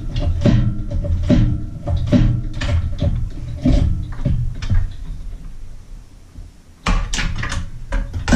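Repeated metal knocks and clunks, roughly two a second, from a Mercury Thunderbolt 500 50 HP outboard power head as it is worked loose from the mid cowl while hanging from a hoist. They die away about two thirds of the way in, then a sudden loud clatter of knocks starts near the end.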